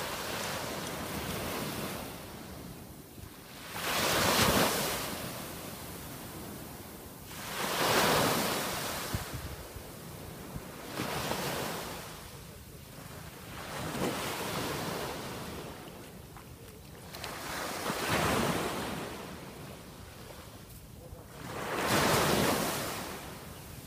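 Small waves breaking and washing up a sandy beach, swelling into a rushing wash about every three to four seconds and easing back between them.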